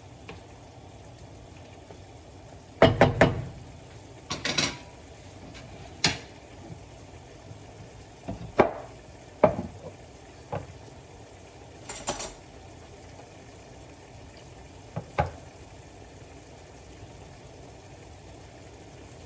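A utensil stirring and knocking against a pan of frying chicken and pineapple: a quick run of clatters about three seconds in, then scattered single knocks, over a steady faint sizzle.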